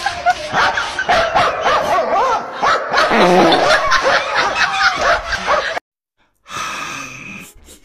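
A dog barking, mixed with people laughing; the sound cuts off suddenly about six seconds in.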